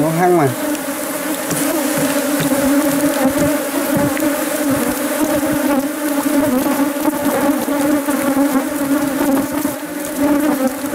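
Swarm of honeybees buzzing in and around an opened wooden hive, many bees flying close by. The hum is loud and steady.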